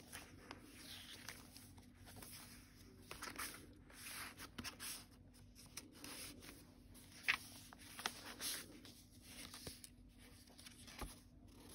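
Soft rustling and brushing of paper as journal pages, a paper tag and a small envelope booklet are handled and turned, with one sharp click about seven seconds in and a faint steady hum underneath.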